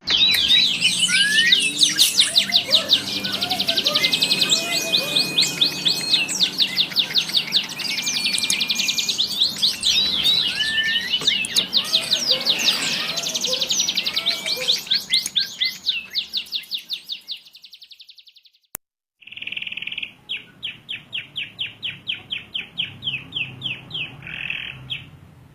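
Domestic canary singing long rolling trills: rapid runs of repeated notes with quick chirps in between. The song breaks off about 18 seconds in, and after a short gap with a single click it resumes with another fast trill.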